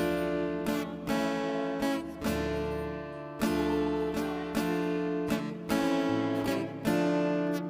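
Acoustic guitar strumming chords at an unhurried pace, a fresh strum about every half second to a second.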